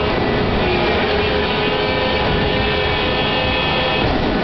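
Mechanical pirate-ship swing running through its operating cycle: steady machine noise with several whining tones held over it.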